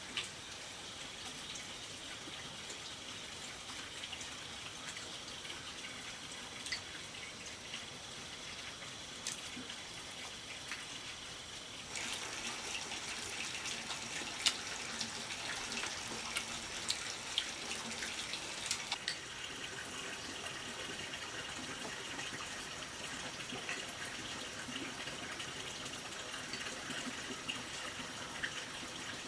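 Running water with light splashes and small clicks, louder and busier for several seconds from about twelve seconds in.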